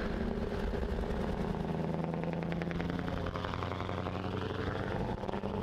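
Scania 4-series truck driving at a steady speed, its engine running with an even low drone over tyre and road noise.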